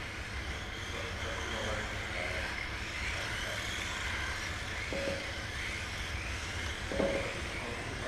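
Several Kyosho Mini-Z electric RC cars racing: the high whine of their motors rises and falls in pitch as they accelerate and brake. Short knocks about five seconds in and again, louder, about seven seconds in.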